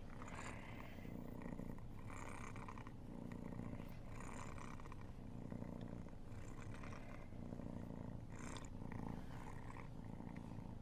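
A cat purring steadily while being cuddled after a bath. The purr swells and fades evenly with its breathing, about once every second and a half.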